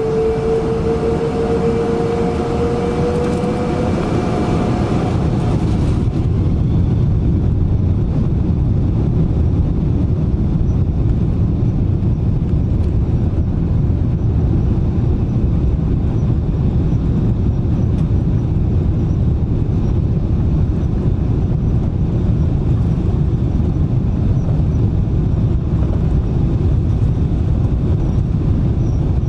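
Boeing 777-300 jet engines spooling up for takeoff: a whine that rises slightly in pitch over the first few seconds. From about six seconds in, a loud, steady low rumble of the takeoff run.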